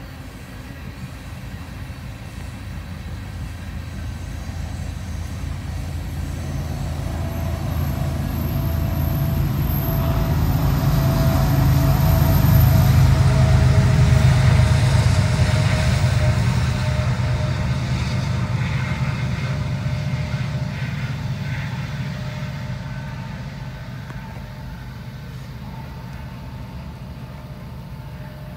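A passing vehicle: a low engine hum that grows slowly to its loudest about halfway through, then fades away again.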